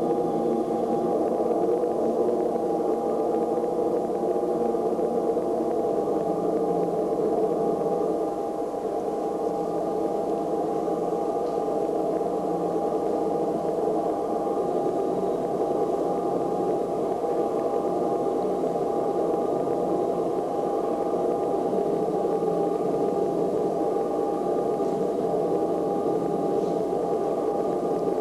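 Sustained electronic noise drone from a contemporary ballet score: a dense, steady hiss-like band with a single held tone through it. A few lingering ringing tones fade out within the first several seconds.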